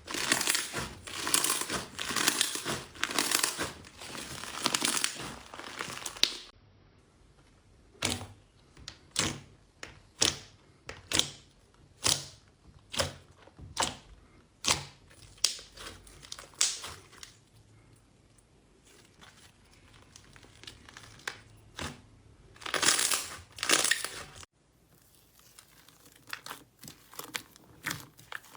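Slime being squished and poked. It starts with dense crinkly crackling, then gives a series of single sharp pops about once a second. Near the end come two louder crackling squishes, then a run of faint quick clicks.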